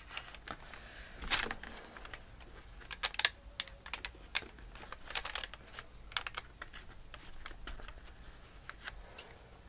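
Scattered light clicks and taps, irregular and about a dozen in all, as hands press a glued paper strip onto a journal page and handle a pair of scissors.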